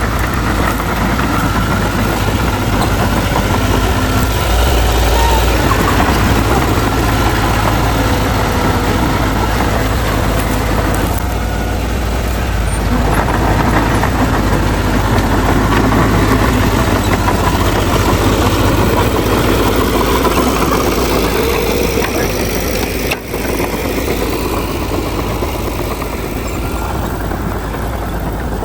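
Heavy diesel earthmoving machinery running steadily, the engines of bulldozers and dump trucks working together, with a momentary break in the sound about two-thirds of the way through.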